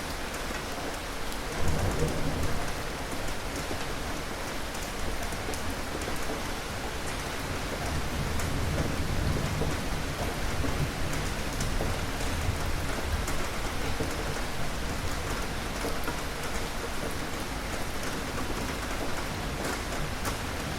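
Steady rain falling, with fine drop patter on top. Low rumbles of thunder swell up about a second and a half in and again near the middle.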